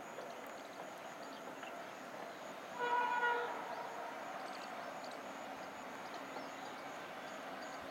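Horn of a WAG-9 electric locomotive sounding once from a distance, a short blast of under a second about three seconds in, over faint steady outdoor background noise.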